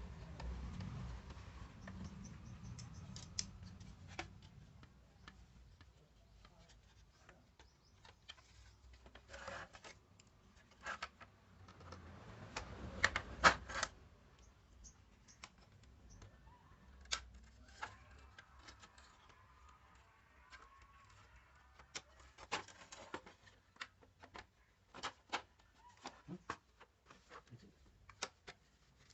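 Scattered clicks, taps and scrapes of small parts and tools being handled, with a louder cluster of knocks about halfway through.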